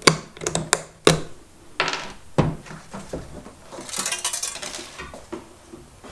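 Small metal parts and tools clinking and knocking, a handful of sharp clicks and taps, while a scroll saw's blade and clamps are being fitted, followed by a brief rustle.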